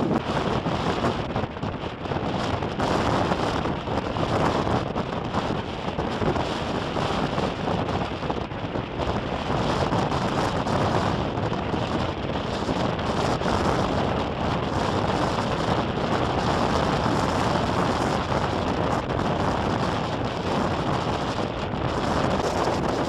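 Storm wind blowing hard across the microphone in gusts: a dense rushing noise that swells and eases without a break.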